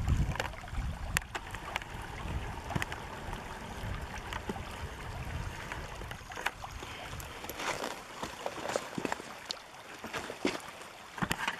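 Shallow river water running over a stony bed, with a low rumble for the first second or so and scattered light clicks and taps.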